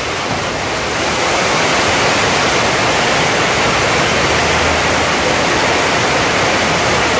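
Loud, steady rushing noise with no distinct strikes or voices in it.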